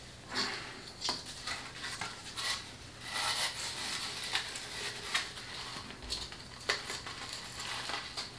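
Tulle rustling as a tulle-covered wreath is handled and turned over, mixed with light taps and clicks of foam core pieces on a cutting mat. The rustling is densest in the middle, and a sharper knock comes near the end.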